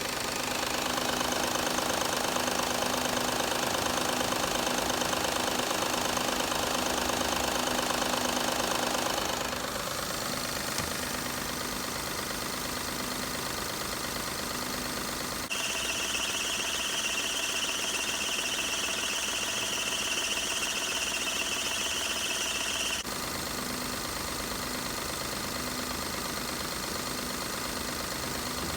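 Daihatsu Tanto L350S three-cylinder kei engine idling in the engine bay, its sound changing abruptly a few times. In the middle stretch a steady high whine runs for about seven seconds over the idle, from the accessory belt drive.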